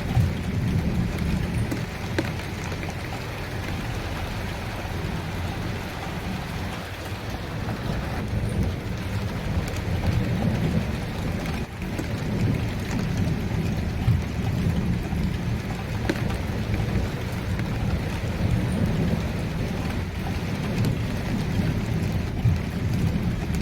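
Steady rain falling, with a low rumble of thunder underneath and a few faint drop ticks.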